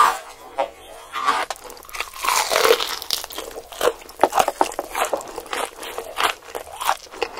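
A person eating by hand: irregular crunching bites and chewing, with short crackles of food being picked up.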